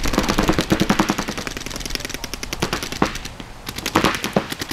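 Paintball markers firing rapid streams of shots, many overlapping, thinning out briefly about three seconds in before picking up again.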